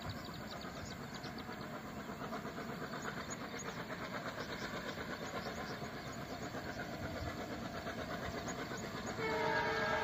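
Twin ALCO WDG3A diesel locomotives chugging in the distance with a fast, even beat, growing slowly louder as they approach. About nine seconds in, the locomotive horn starts sounding, a steady chord of several tones.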